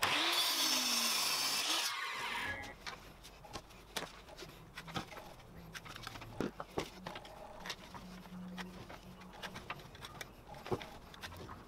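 Mitre saw cutting through a reclaimed hardwood blank, its motor winding down and stopping about two and a half seconds in. After that come scattered light taps and scrapes as a plastic centre-finder template is set on the end grain of the blank and the centre is marked.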